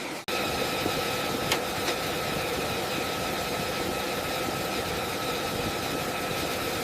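An engine running steadily, a constant drone with a steady whine over it. There is a single short click about one and a half seconds in.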